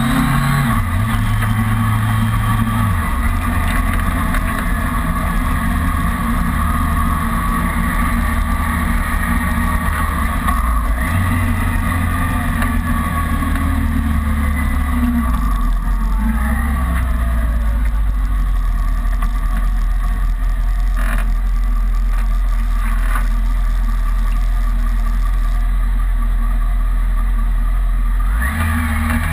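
Kawasaki ZRX inline-four motorcycle engine running under way, its note dropping in steps as the bike slows, then rising again near the end as it picks up speed.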